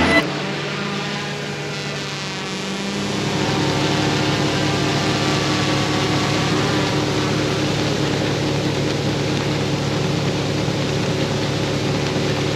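Steady engine and machinery hum with an even hiss from a tractor and fertilizer tender, its overhead auger pouring granular fertilizer into a spreader buggy; the pitch of the hum shifts a little about three seconds in.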